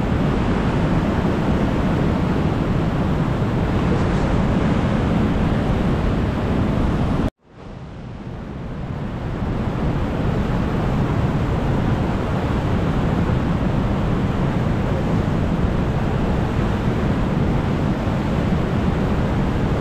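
Steady, loud rushing outdoor noise with no clear pitch. It cuts out abruptly a little past seven seconds in, then fades back up over the next two seconds.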